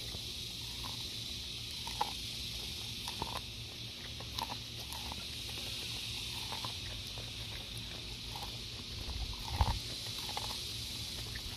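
Cocker spaniel biting and crunching kernels off a cob of corn on the cob: irregular small crunchy clicks every second or so over a steady hiss, with a duller bump near the end.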